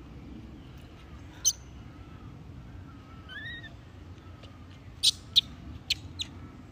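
Macaque calls: a sharp high squeak about a second and a half in, a short rising-then-falling coo near the middle, and a quick run of four sharp squeaks near the end.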